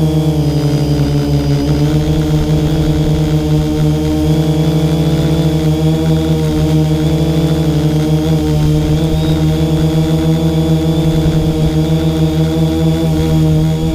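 A 250-size quadcopter drone's motors and propellers running with a steady buzzing hum as it climbs, picked up close by the camera mounted on the drone.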